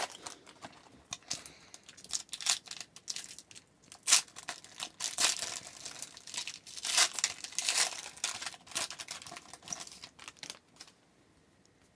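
Trading card pack wrapper crinkling and tearing as it is opened by hand, with the cards rustling, in irregular bursts that stop about eleven seconds in.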